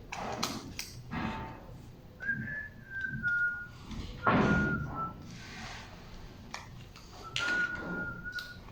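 A person whistling a few short, wavering notes of a tune in three phrases, with knocks and thunks of handling in between; the loudest thunk comes about four seconds in.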